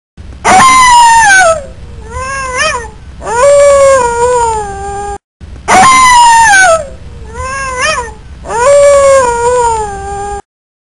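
Cat meowing: three drawn-out meows, the first and last falling in pitch and the middle one short. The same three-meow sequence is heard a second time after a brief break.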